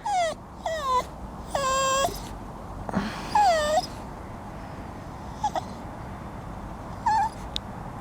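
Cockapoo whining and whimpering: a string of about six high-pitched cries, most sliding down in pitch, the longest near two seconds and three and a half seconds in.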